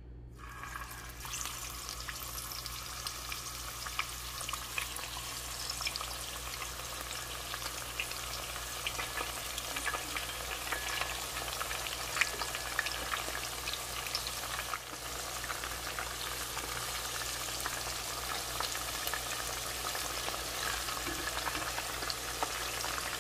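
Lamb chops sizzling in hot oil as they are seared: the frying hiss sets in about a second in as the first chop goes into the oil, then carries on steadily with many small crackling pops.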